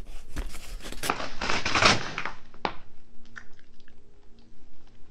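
Crinkling and rustling of a brown paper mailer being handled and torn open by hand, with one sharp knock about two and a half seconds in, then a few faint clicks.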